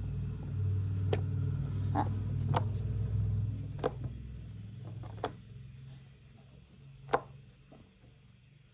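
Homemade slime being handled and squeezed: a low rumble of handling that fades about five seconds in, with a handful of sharp little pops and clicks, the loudest near the end.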